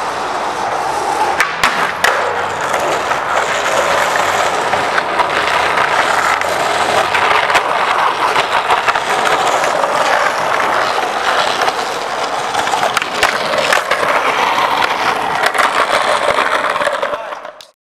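Skateboard wheels rolling over rough asphalt and concrete, a steady close-up rumble, with several sharp clacks of the board popping and landing. It cuts off suddenly near the end.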